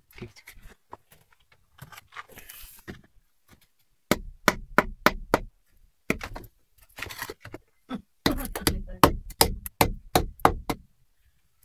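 Three runs of quick, sharp knocks on wood and stone of a wall hive's opening, about four a second, the last run the longest.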